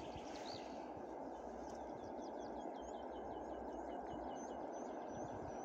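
A songbird singing a fast run of repeated short high notes for a few seconds, ending in a few higher chirps, over a steady low rush of background noise.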